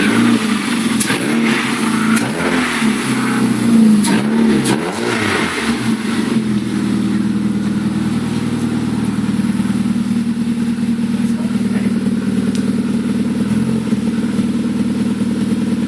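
Rover 1.4 16-valve K-series four-cylinder engine in a Mini Clubman estate, running for the first time after its restoration. It is revved up and down several times for the first six seconds or so, then settles to a steady idle.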